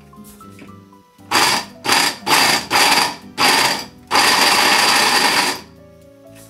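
Tiger blender's motor grinding dried shiitake slices, pulsed with its flash button: five short bursts, then one longer run of about a second and a half. Really noisy.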